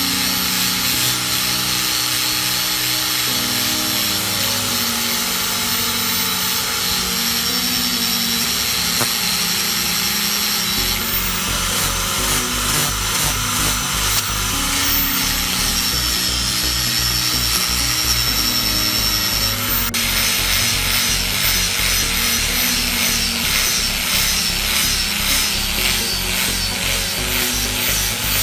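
Angle grinder with a sanding disc grinding the steel head of a cross peen hammer down to bare metal, the motor whining steadily as the disc scours the steel. Background music with a low beat plays underneath, the beat coming in partway through.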